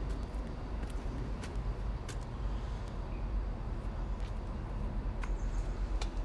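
Low, steady rumble of a train passing on the nearby railway line, with a few scattered sharp clicks.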